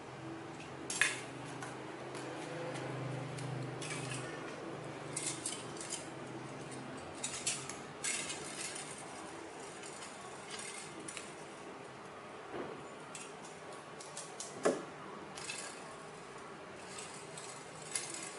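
Thin aluminium strips cut from a drink can, bent and handled by hand: scattered small metallic clicks and crinkles, over a faint low steady hum.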